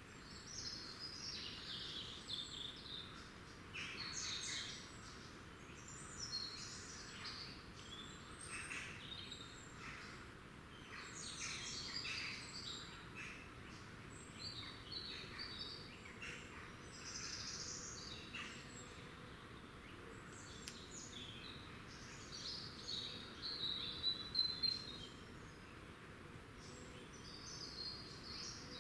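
Woodland songbirds calling and singing, with many short, high chirps and brief phrases overlapping over a faint hiss. A louder trill comes near the end.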